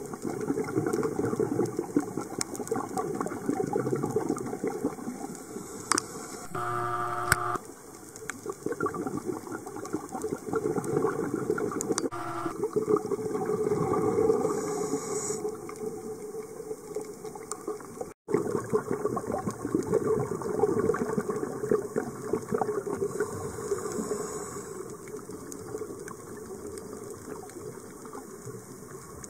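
Underwater sound picked up by a camera in its housing on a coral reef: a continuous rushing and gurgling of water and bubbles that swells and ebbs every few seconds, with scattered sharp clicks. The sound drops out for an instant about two-thirds of the way through.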